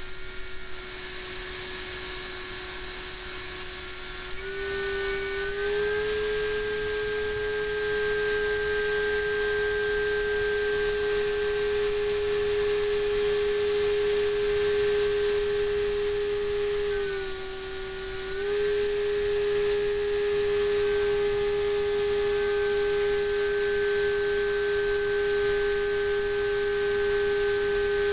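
Electric-converted Dynamax ducted fan, driven by a Neu 1527 brushless motor, running near full power with a steady high whine. Its pitch steps up about five seconds in as the fan speeds up to around 24,700 rpm, dips briefly after about 17 seconds, and comes straight back up.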